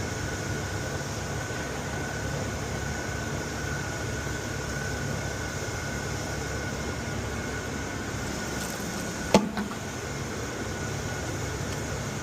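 Steady mechanical hum with a thin high whine, and one sharp knock about nine seconds in.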